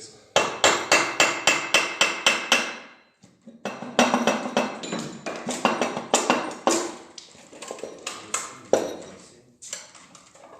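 Rapid hammer blows on metal, about four a second with a ringing tone, then after a short pause a longer run of irregular knocks: striking the G4NA engine's cylinder head to break it free from the block once its bolts are out.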